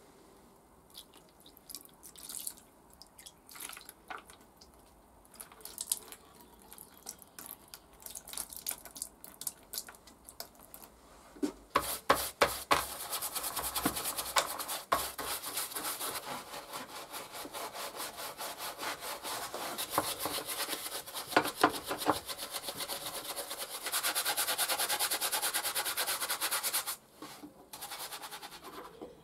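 Bristle brush scrubbing wet, rusty hand-plane parts, the steel blade among them, in quick back-and-forth strokes that go on for most of the second half and are loudest near the end. A few scattered light knocks come first.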